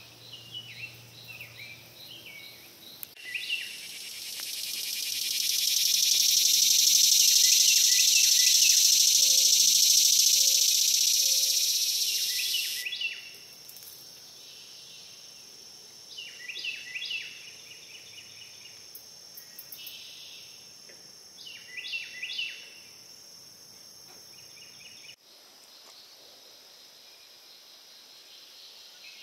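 Summer woodland insect and bird chorus: a loud, high-pitched cicada buzz swells up a few seconds in, holds, and fades out after about ten seconds. Songbirds sing short series of quick chirps near the start and twice more later, over a thin steady high insect tone.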